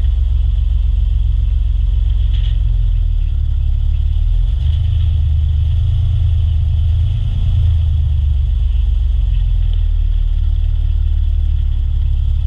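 Outrigger fishing boat (bangka) engine running steadily under way, a loud low drone.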